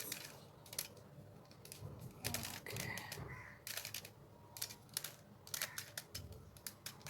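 Plastic 3×3 Rubik's cube layers being turned by hand: a series of short clicks and clacks, some in quick clusters, as the pieces snap into place.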